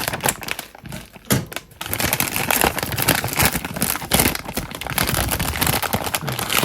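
Plastic packaging of coffee-flavoured konjac jelly crinkling and rustling as it is handled and opened, with dense crackles and sharp clicks, busiest from about two seconds in.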